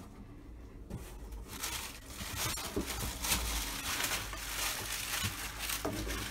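Plastic wrapping and cardboard packaging rustling and crinkling as bare-root fruit trees are handled in their long delivery box, with many small crackles, busier after about a second and a half.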